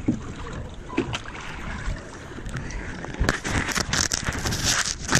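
Water splashing and sloshing around a catamaran on the sea, with wind rumbling on the microphone and a few light knocks. The splashing grows louder and brighter from about three seconds in.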